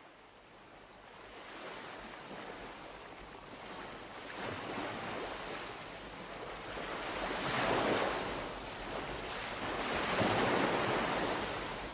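Ocean surf breaking on a beach: the wash fades up from quiet and swells three times, each wave louder than the one before.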